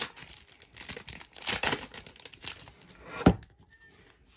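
Foil wrapper of an Upper Deck Series One hockey card pack crinkling and tearing as it is opened, followed by one sharp knock about three seconds in.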